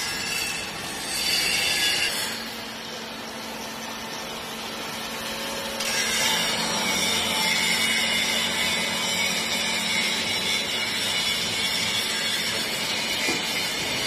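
Vertical hydraulic baler running, its electric motor and hydraulic pump driving the ram down onto a chamber of textile scraps. A steady hum sets in about two seconds in, and from about six seconds in the machine gets louder and higher-pitched as the ram presses the load.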